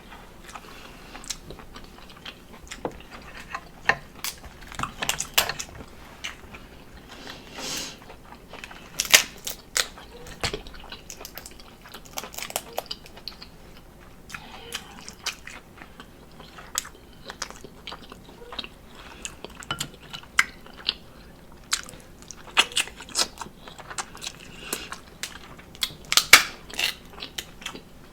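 Close-miked eating sounds of a person chewing and biting seafood, with irregular sharp clicks and crunches scattered throughout.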